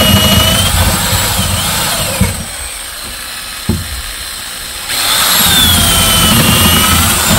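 Corded electric drill with a long auger bit boring up into the wooden floor framing. The motor's whine sags and wavers as the bit bites, eases off about two seconds in with a click near four seconds, and comes back up to speed about five seconds in.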